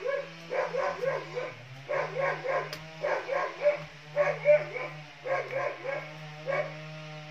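A dog yapping in quick runs of short, high barks, three to five at a time with brief pauses between runs.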